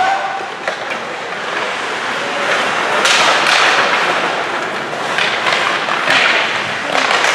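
Ice hockey play in a rink: a steady noisy wash of skates and crowd, broken by several sharp knocks of stick, puck and boards.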